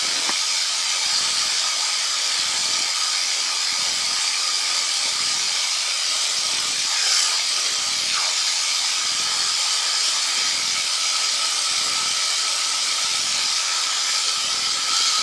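Steady rushing hiss of wind and engine noise from a P&M QuikR Explorer microlight trike, Rotax 912ULS-powered, in cruise flight, with thin steady tones running through it. It swells briefly about seven seconds in.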